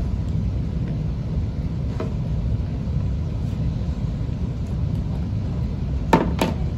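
Steady low background rumble, with a faint knock about two seconds in and two sharp knocks near the end as a toy fish is handled on a wooden play table.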